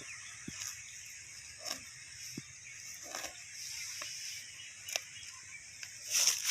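Rural outdoor ambience: a steady high hiss with faint, scattered animal calls and a few soft clicks, and a louder rustling burst near the end.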